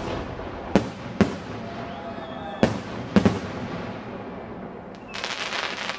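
Aerial fireworks going off: about six sharp bangs in the first three and a half seconds, each with an echoing tail, then a dense burst of crackling near the end.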